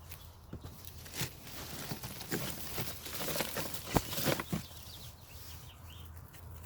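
Hands digging and rummaging through soil in a cardboard box of potatoes: scattered rustling and scraping, busiest in the middle, with one sharp knock about four seconds in.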